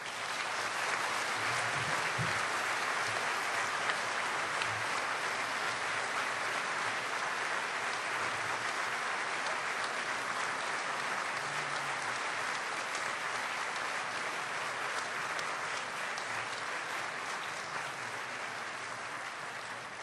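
Audience applauding steadily, a dense mass of many hands clapping that starts sharply and tapers off slightly near the end.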